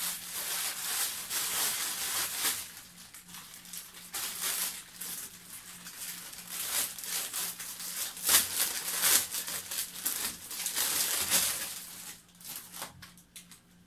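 Thin plastic packaging bag crinkling and rustling in irregular bursts as a garment is pulled out of it, the loudest crackle about eight seconds in.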